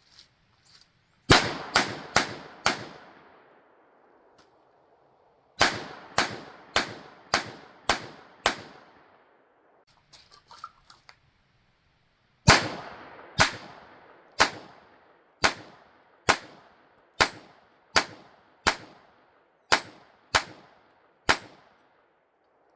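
Ruger LCP II Lite Rack .22 LR pistol firing in three strings of evenly paced single shots: four quick ones, then six, then a longer string of about eleven, each a sharp crack with a short ringing tail. A few light metallic clicks come between the second and third strings.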